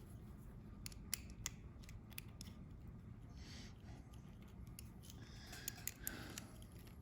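Faint, scattered small clicks and brief scrapes as a window lockout switch is worked out of a reproduction 1964–66 Thunderbird power-window switch plate.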